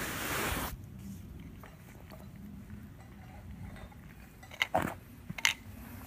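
Calico cat eating from a bowl: quiet chewing with small clicks, and a few sharp clicks of teeth or food against the bowl near the end. A brief hiss of noise in the first second.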